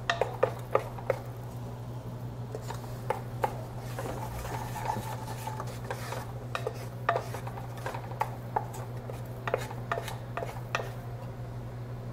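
Wooden spatula stirring a butter-and-flour roux in a saucepan, scraping the bottom and corners with irregular clicks and taps against the pan. A steady low hum runs underneath.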